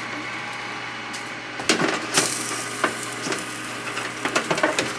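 Wire-mesh air-fryer tray loaded with green beans being handled and slid into an air fryer oven: a run of clattering clicks and knocks starting about a second and a half in and thickening near the end, over a steady low hum.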